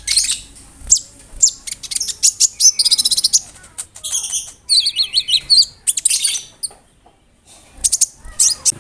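Brown-throated sunbird (konin) singing a fast, varied song of sharp high chirps, quick trills and short buzzy phrases. There is a gap of about a second about two-thirds of the way through, then sharp notes resume.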